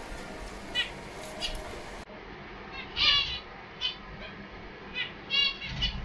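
Small caged parakeets chirping: short, sharp calls repeated at irregular intervals, with a quick run of them about three seconds in and several more near the end.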